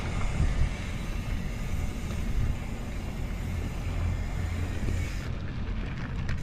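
Mountain bike ride on a dirt trail: a steady low rumble of wind buffeting the microphone and tyres rolling, with a few light knocks.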